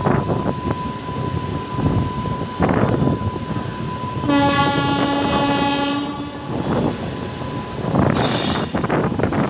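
Horn of a WAG-9HC electric locomotive sounding one steady note for about two seconds, a little after four seconds in, over the rumble and wheel clatter of ICF coaches running. A short rush of hissing noise follows near the end.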